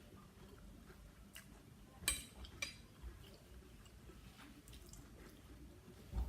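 Someone eating a meal: quiet chewing with a few sharp clicks, the loudest about two seconds in, and a low thump near the end.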